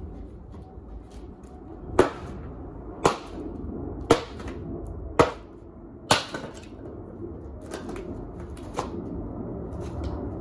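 Five hard blows striking a subwoofer speaker about a second apart, each with a short ring, then two lighter knocks, as the speaker is smashed apart.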